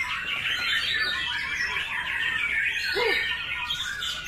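Birdsong: a caged white-rumped shama (murai batu) singing a dense run of quick chirps and whistles, with a short, lower squawk about three seconds in.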